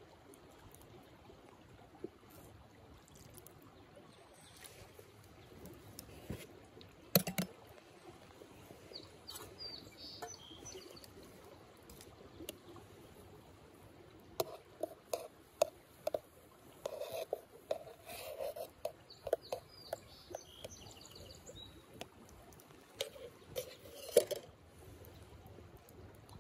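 Liquid pouring into wooden cups: coffee from a kettle, then frothed milk from a steel mug, with a run of short splashy bursts in the middle. Scattered sharp knocks and clinks of camp cookware run through it, the loudest about seven seconds in and near the end, and birds chirp in the background.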